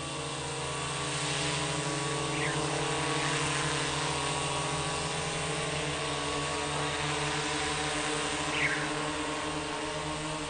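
Camera drone's propellers humming steadily in flight.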